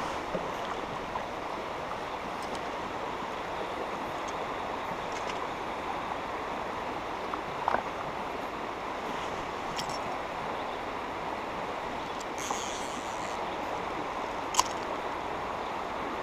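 Steady rushing of a shallow, stony river current flowing over rocks, with a few brief clicks about halfway through and near the end.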